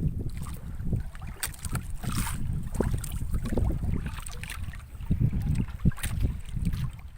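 Wind buffeting the microphone aboard a small fishing boat, a gusty low rumble, with scattered knocks and splashes from the boat and gear.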